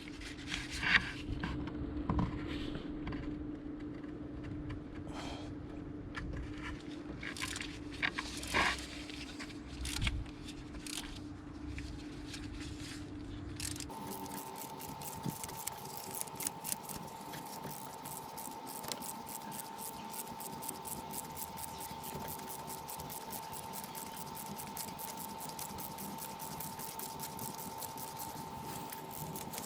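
Metal hand tools clinking and knocking while the starter motor's mounting bolts are worked loose. About halfway through, the sound changes suddenly to a steady, fast, even clicking over a constant hum.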